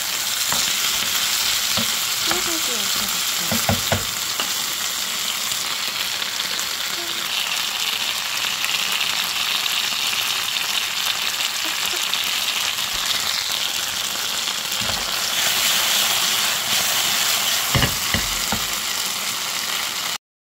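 Vienna sausages and vegetables sizzling in a frying pan as they are stir-fried, a steady hiss with a few knocks. The sound cuts off suddenly near the end.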